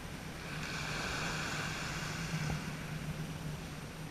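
Seaside ambience: small waves washing on a pebble beach and wind on the microphone, over a low steady hum.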